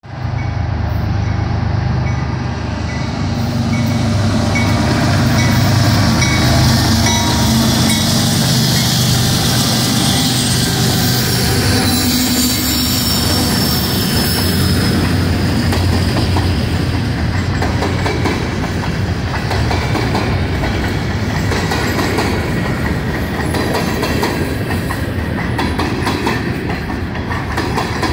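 Freight train of GE diesel locomotives and empty grain hopper cars passing close by. Steady diesel engine tones are heard through the first half, then the loaded-free hoppers rattle and clack over the rail joints, with a brief high wheel squeal about halfway through.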